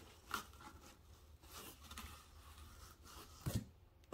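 Faint handling sounds of unpacking: foam sleeves being set down on a table and hands rummaging in a cardboard box. There is a soft knock about half a second in and a louder thud near the end.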